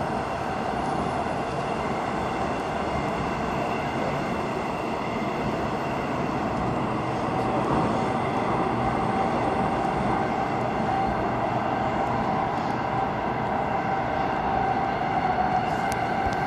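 Airport Railroad Express electric train running at speed, heard from on board: a steady rumble and rush of wheels on rail with a steady mid-pitched whine over it.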